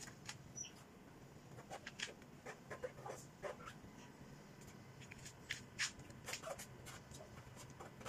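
Faint, irregular clicks and taps from hand-washing a motorcycle, over a low steady background hum.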